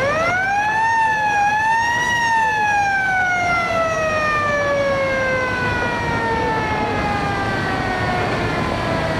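A passenger river launch's siren sounding. Its pitch climbs quickly in the first second, dips briefly and rises again at about two seconds, then slowly winds down over several seconds, heard over steady background noise.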